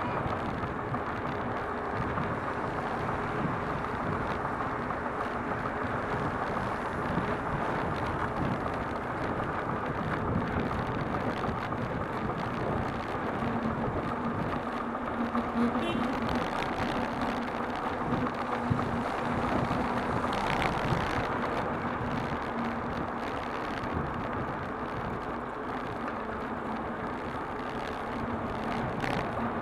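City street traffic noise heard from a moving bicycle: cars running and passing close by. A steady low hum stands out for several seconds around the middle.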